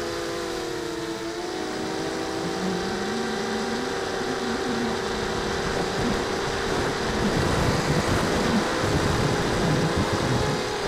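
Mogo250 mini quadcopter's SunnySky 2300 brushless motors and propellers whining in flight, heard from the onboard camera: several close pitches that shift a little with throttle. Wind rush on the microphone grows louder in the second half as the quad flies low and faster.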